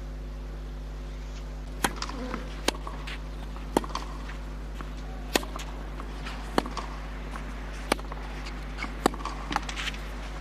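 Tennis rally on a clay court: a string of sharp racket-on-ball hits, starting with the serve about two seconds in and then coming about every second to second and a half, with fainter ticks between them. A steady low hum runs underneath.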